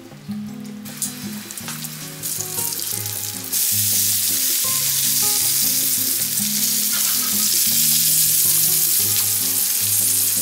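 Bacon strips sizzling in a frying pan: a loud, steady sizzle that comes in suddenly about three and a half seconds in, after a quieter sizzle of a pancake cooking in butter.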